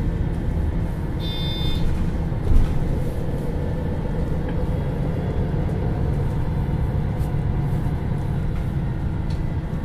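MAN NL323 Lions City city bus heard from on board: its diesel engine and driving noise as a steady low rumble. A short high-pitched tone sounds about a second in, and a brief thump comes at about two and a half seconds.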